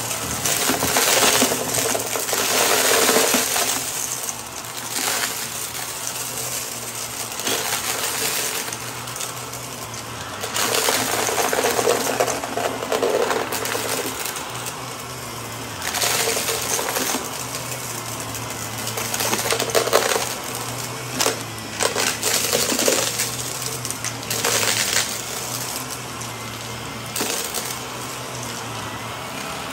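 Shark Navigator upright vacuum running steadily over a shag rug, its motor humming under repeated spells of crunching and rattling as glitter, sequins and gritty debris are sucked up into the clear bin.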